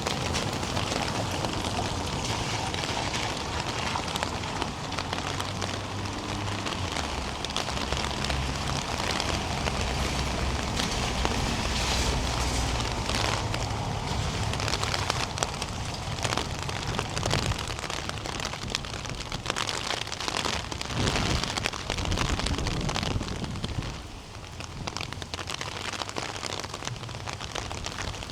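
Steady rain falling, with many close raindrop hits pattering, over a low rumble for roughly the first two thirds. The rain gets somewhat quieter about 24 seconds in.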